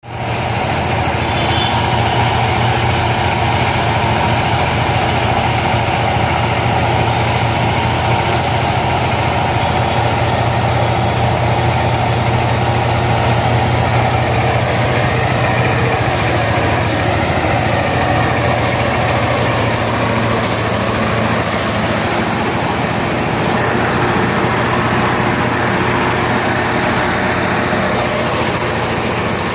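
Motorised drum-type paddy thresher running steadily with a low engine hum and a loud rushing clatter as rice sheaves are fed into its spinning drum.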